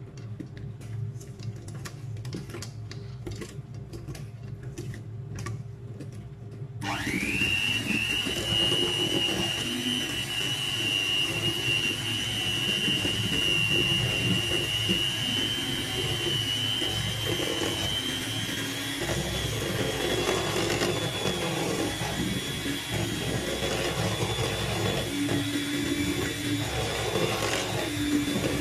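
Electric hand mixer beating thick batter in a stainless steel bowl. For the first several seconds it is quieter, with rapid clicking; then, about seven seconds in, a high motor whine comes in sharply and runs steady, creeping slightly higher in pitch as the batter smooths out.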